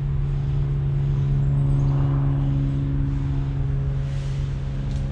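A steady low mechanical hum that holds one pitch throughout, over a low rumble.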